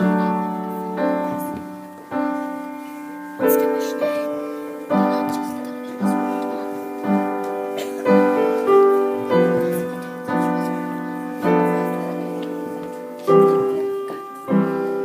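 Piano playing a slow piece: chords struck one after another, about one a second, each left to ring and fade.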